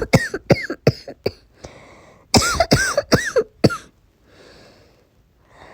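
A person coughing in two fits of four or five harsh coughs each, the second starting about two and a half seconds in, with breaths drawn between. The coughing acts out a persistent, sore-throated cough from a cold.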